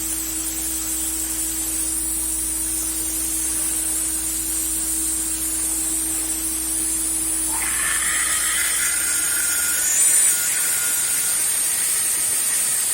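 CNC router spindle running with a steady high hiss while the machine slowly drills a hole. A steady hum stops about seven and a half seconds in, and a higher whine with several tones sets in.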